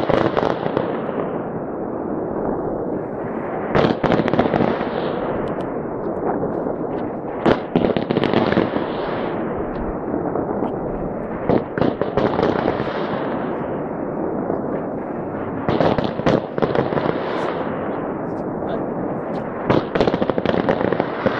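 New Year fireworks display going off continuously, a dense unbroken noise of explosions with clusters of sharp bangs about every four seconds.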